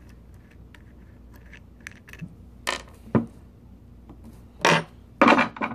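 Metal parts of a car starter motor being handled on a wooden table: several separate clinks and knocks as the solenoid is worked loose and the screwdriver and parts are set down, with the loudest cluster near the end.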